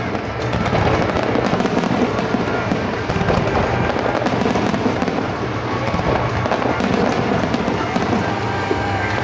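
Fireworks barrage from a wide starmine, with rapid shell bursts and dense crackling throughout. Music plays alongside it.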